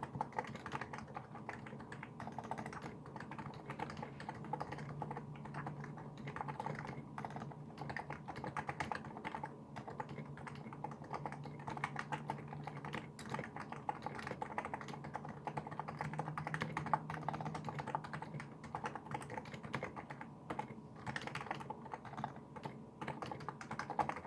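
Fast, continuous typing on a Niz Plum Micro84 keyboard with its electro-capacitive switches and SA-profile keycaps: a dense run of keystroke clacks with no real pauses.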